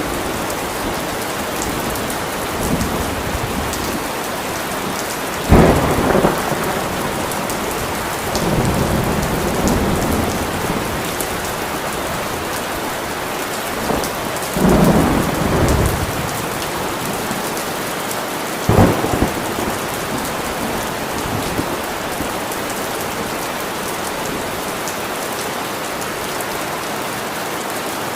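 Steady rain with thunder. A sudden crack of thunder is followed by two longer rolling rumbles and then another sharp crack, all in the first two-thirds; after that only the rain continues.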